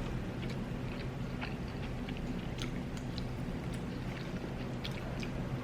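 A person chewing a mouthful of jerk chicken close to the microphone, with scattered small wet mouth clicks, over a steady low background hum.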